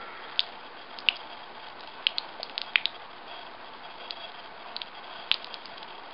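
A thin stream of water pouring and splashing onto flat rock: a steady trickle with irregular sharp drip-like plinks, the loudest about a second in, near three seconds and past five seconds.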